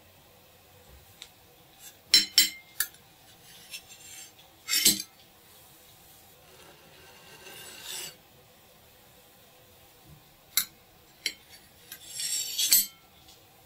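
Kitchen utensils clinking and scraping on dishes: a scattering of sharp clicks and a few short rasping scrapes, with quiet between them.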